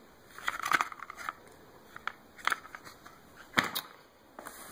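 Blender packaging handled by hand: plastic wrapping crinkling, with a string of short, sharp clicks and crackles, the loudest about three and a half seconds in.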